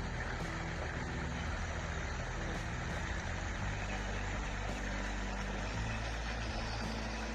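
Steady low rumble with an even hiss over it: outdoor background noise, with no single event standing out.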